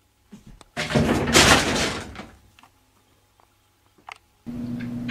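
A wooden door thudding and rattling for about a second as a cat leaps at its lever handle, followed by a few faint clicks. Near the end a steady low hum with light taps begins.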